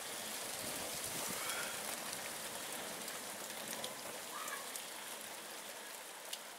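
Rain falling steadily at the start of a thunderstorm shower: a fine, even hiss with scattered sharp ticks of drops hitting.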